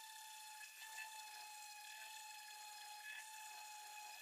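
Electric random orbital sander running with a faint, steady whine while sanding the head of an old claw hammer smooth.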